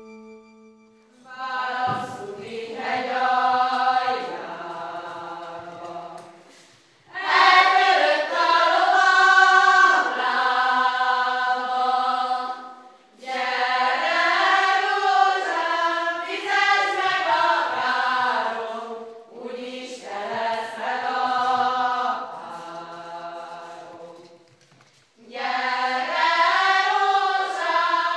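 A group of mostly women's voices singing a folk song without accompaniment, in phrases of about five seconds each with short breaths between them.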